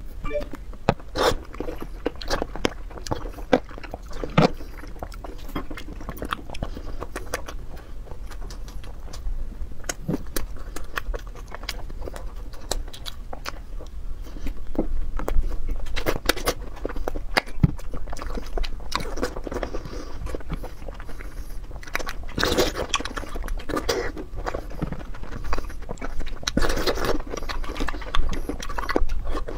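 Close-miked eating: biting and chewing soft sweets, with many small mouth clicks throughout and louder stretches of chewing in the second half.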